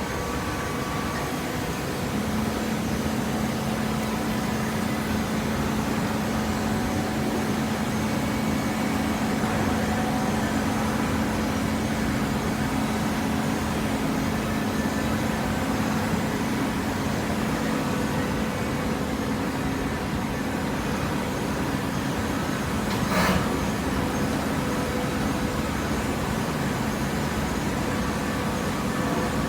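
Horizontal paper baling press running in a factory: a steady mechanical hum and machine noise that settles in about two seconds in, with one brief sharp noise about three-quarters of the way through.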